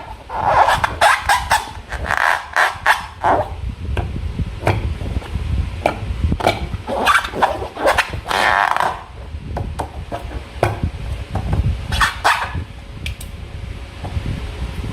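Slime being squeezed and worked by hand: irregular wet squelches and sticky popping clicks.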